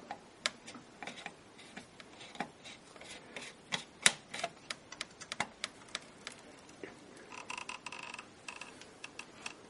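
Irregular light clicks and knocks of an opened oscilloscope chassis being handled and moved. About three-quarters of the way through there is a brief rubbing squeak.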